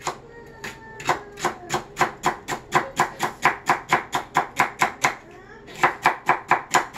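Chef's knife chopping celery on a cutting board: a steady run of sharp cuts, about four a second, with a brief pause near the end.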